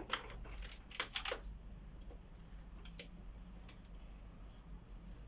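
Light clicks and taps of small parts being handled: a quick cluster in the first second and a half, then a few single clicks around three to four seconds in.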